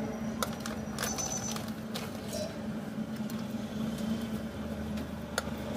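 Gulab jamun dough balls being dropped into hot oil in a steel pan to fry: a faint sizzle with a few light taps, over a steady low hum.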